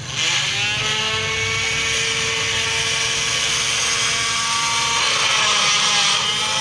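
Small DC drill motor with chuck and drill bit spinning up with a rising whine, then running at a steady speed.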